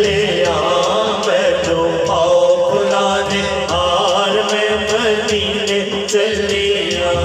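Naat sung by a male lead voice into a microphone, joined by other male voices, over a steady hand-drum beat.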